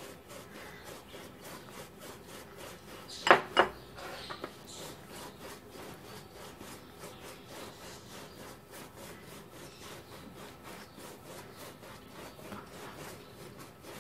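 A stainless-steel rolling pin rolled back and forth over a floured stack of layered dough, making a soft repeated rubbing. About three seconds in come two sharp knocks close together.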